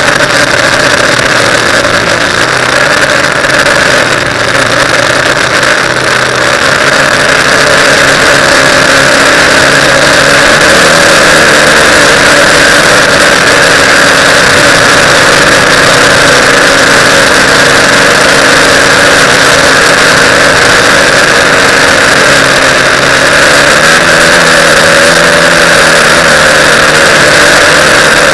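TBS Discovery quadcopter's electric motors and propellers running in flight: a loud, steady whine that wavers slightly in pitch.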